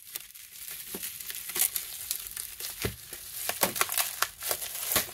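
Bubble wrap crinkling and rustling as it is unwrapped by hand, with many irregular sharp crackles.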